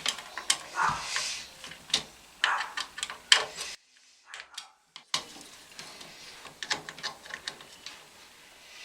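Sharp clicks and light knocks of computer hardware being handled inside an open desktop case during a processor swap. They are louder in the first half and lighter and more scattered after a short break.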